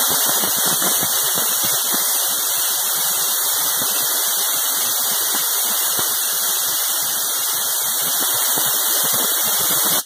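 Compressed-air blow gun blowing a steady hiss of air onto a freshly ground, hot steel piece to cool it, cutting off abruptly at the end.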